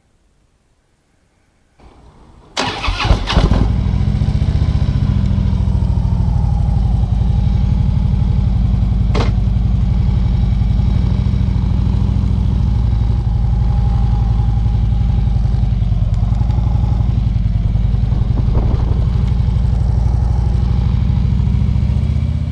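Harley-Davidson Ultra Limited's V-twin engine starting: about two and a half seconds in it cranks and catches, then settles into a steady idle. A single sharp click comes about nine seconds in.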